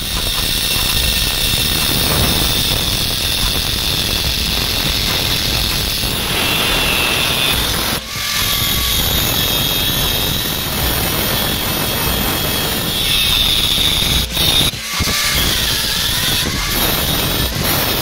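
Angle grinder with a thin cut-off disc cutting into a steel bar, running steadily under load with a few brief dips where the cut eases off.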